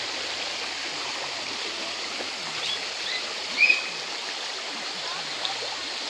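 Shallow rocky creek babbling steadily over stones. A few short high chirps sound over it near the middle, the loudest about three and a half seconds in.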